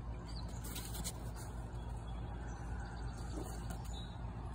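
A steady low mechanical hum in the background, with a few faint light knocks of the wooden crate being handled.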